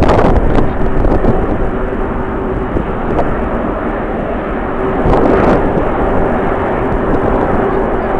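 Jet airliner engine noise, a steady rush with one held tone running through it, mixed with strong wind buffeting the microphone, the gusts strongest near the start and near the end.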